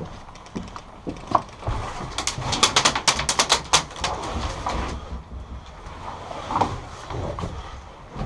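Airsoft gun firing a quick string of about a dozen sharp cracks over a second and a half, with scattered single clicks and rustling around it.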